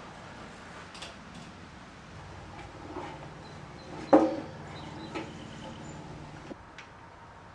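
Light knocks and clinks of tools and parts being handled during motorcycle reassembly, with one loud clank about four seconds in that rings briefly.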